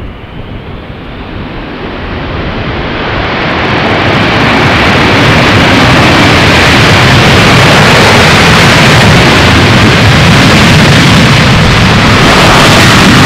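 Boeing 747-400F's four jet engines on the landing roll, a loud rushing jet noise that swells over the first few seconds as the aircraft nears and then holds steady.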